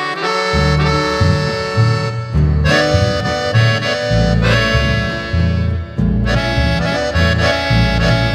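Accordion playing the melody of a song's instrumental introduction, with a double bass and rhythm accompaniment coming in about half a second in.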